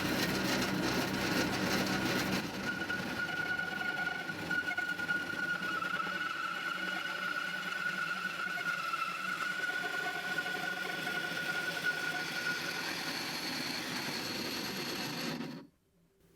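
Power saw cutting through a cast resin block: the motor runs with a fast pulsing hum, then a steady high-pitched whine as the blade bites, stopping abruptly near the end.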